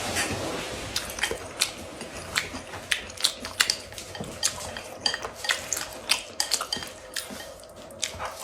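Eating utensils clicking and scraping against a bowl of rice and sauce, in many short, irregular taps.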